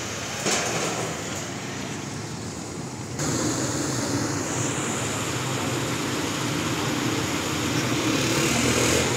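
Small motorcycle engines running steadily, the sound stepping up suddenly about three seconds in.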